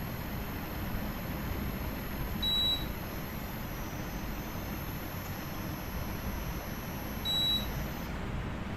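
Carrier inverter air conditioner's compressor running steadily, loading up gradually: the sign of a compressor now turning the right way after its U-V-W phase wiring was corrected. Two short high electronic beeps sound, about three and seven seconds in.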